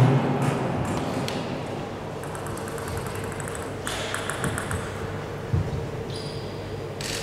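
Table tennis ball giving a few light, separate taps over a quiet sports-hall background with a steady low hum. There is a soft thud about five and a half seconds in. Background music cuts off at the very start.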